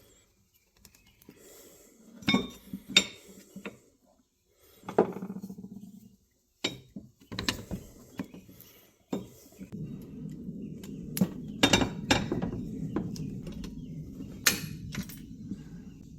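Metal parts and hand tools clinking and knocking in a series of sharp separate strikes, with a steady low rumbling noise under them from about ten seconds in.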